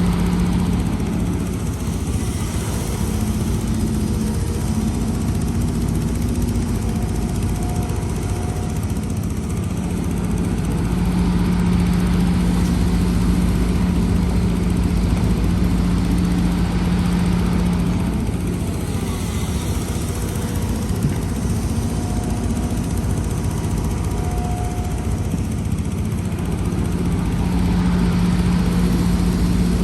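Heavy diesel excavator engine running steadily, its note swelling and easing every several seconds as the machine works under changing load.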